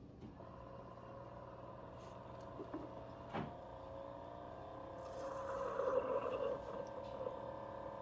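Keurig K-Supreme Plus single-serve coffee brewer near the end of its brew cycle: the pump motor hums and whines, its pitch rising slowly, with one sharp click about three seconds in. From about five seconds in it grows louder with a hissing sputter as the last of the coffee is pushed through the K-Cup.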